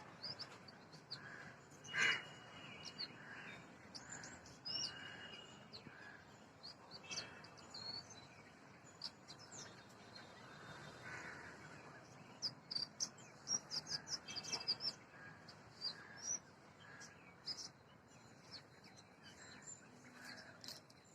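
Oriental magpie-robin calling and singing: a run of short, high chirps and whistles, with one louder call about two seconds in.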